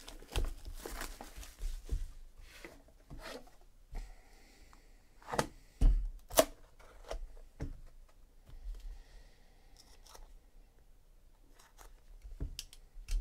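Box cutter slicing and tearing through the shrink wrap and sealed packaging of a trading-card box, with rustling and scraping. A few sharp knocks come near the middle as the box and its inner case are handled on the table.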